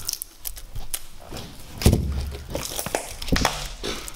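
Footsteps and scattered knocks, with one heavy thump about two seconds in.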